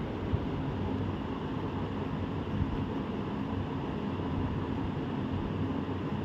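WDP4D diesel-electric locomotive's engine running steadily as it hauls its train slowly toward the crossing, a low even drone.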